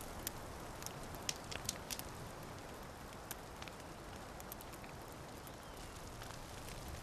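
Steady soft hiss of outdoor ambience with scattered small crackles and clicks, most of them in the first two seconds.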